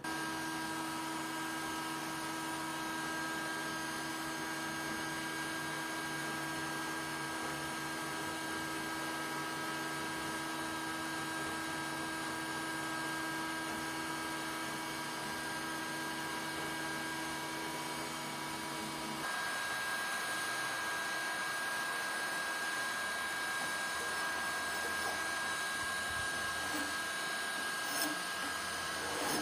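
An electric power tool's motor running steadily with a constant whine. Its tone shifts about two-thirds of the way through, and a couple of light knocks come near the end.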